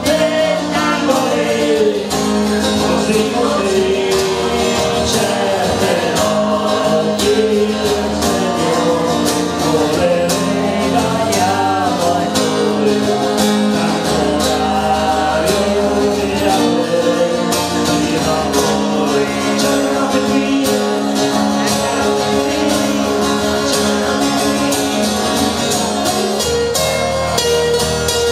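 Live acoustic duo: two acoustic guitars strummed in a steady rhythm while male voices sing a song.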